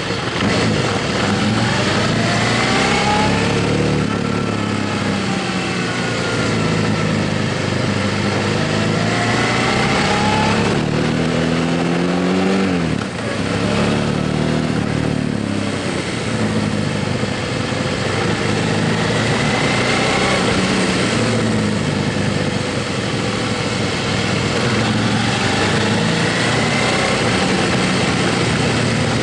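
Motorcycle engine under way, its pitch rising again and again as it accelerates through the gears, with a brief drop about thirteen seconds in. An even rush of wind noise runs underneath.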